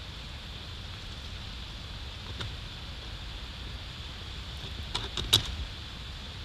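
Steady wind-like hiss on an outdoor nest microphone. A few sharp clicks and snaps of dry nest sticks come as two bald eagles shift and step on the stick nest: one faint click early, then a quick cluster about five seconds in, the last the loudest.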